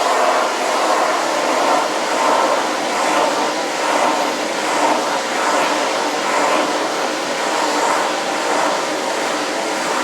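Vacuum cleaner running steadily with a faint motor whine, its nozzle being drawn over a cat's fur, the sound wavering slightly as the nozzle moves.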